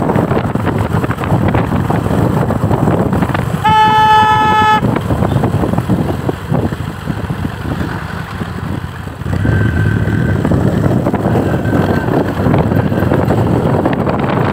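Steady vehicle and road noise, with a vehicle horn sounding once for about a second, about four seconds in.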